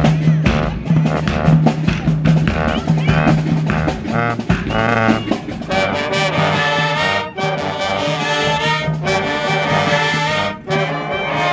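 High school marching band playing live: drums and a repeating low bass line, with the trumpets, trombones and saxophones coming in with full sustained chords about halfway through.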